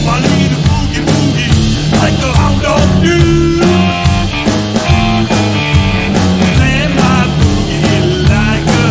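Live blues-boogie rock band playing: electric guitar, electric bass and drum kit. The guitar plays notes that glide and bend up and down over a steady driving beat.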